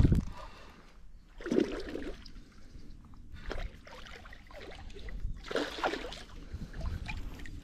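Hooked fish splashing at the water's surface as it is drawn in to be landed, in several short bursts about two seconds apart.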